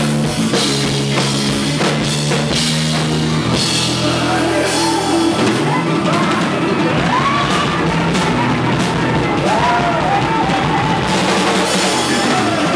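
Live band playing a funk-soul number: Ludwig drum kit, electric bass and organ. Held low chords give way, about four seconds in, to a lead line that bends up and down in pitch.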